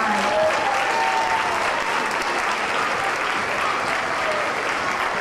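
Audience applauding steadily, with a few voices among the clapping.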